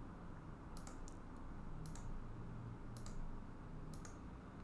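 Faint computer mouse clicks, four of them about a second apart, over a low steady hum.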